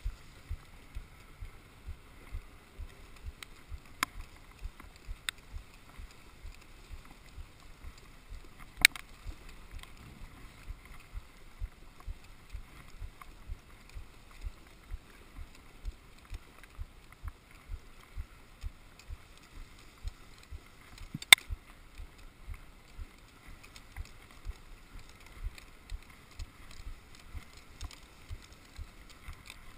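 A dog sled gliding over a packed snow trail behind its running team: a steady faint hiss of the runners on snow, soft low thumps nearly twice a second, and a few sharp knocks from the sled, the loudest about 9 and 21 seconds in.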